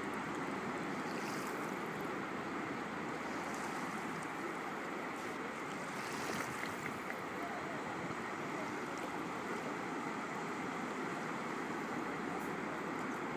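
Shallow water lapping over a sandy bottom in small waves: a steady rushing wash with a few faint splashes.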